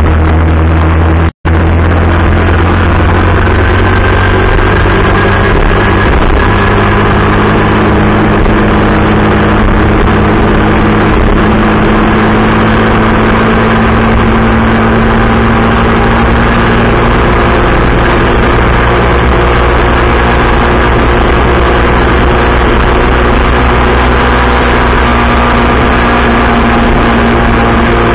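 A vehicle engine running steadily while driving, a low drone whose pitch drifts slowly up and down with speed. The sound cuts out for an instant about a second and a half in.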